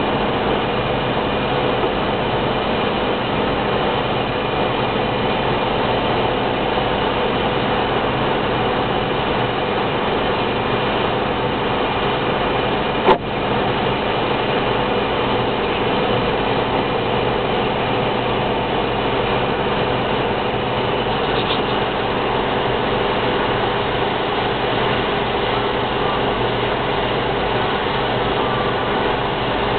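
Steady drone of a car at motorway speed heard from inside the cabin: engine and tyres on a wet road, with no change in pitch or level. One sharp click a little before halfway.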